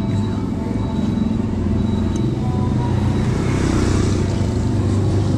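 Street traffic rumbling steadily, with a motorcycle engine running as it passes close by about four seconds in.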